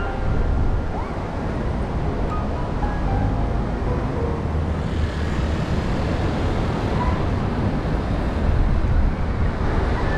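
Steady coastal road ambience: traffic noise mixed with wind and surf, with a few faint music notes in the first seconds. A brighter hiss thickens about halfway through.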